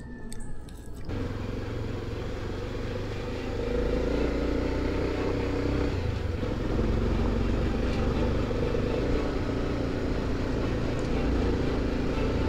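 Honda XRE300 single-cylinder motorcycle engine running steadily on a gravel road, heard from the handlebar camera, with tyre and wind noise. It starts with a cut about a second in and gets louder about three and a half seconds in.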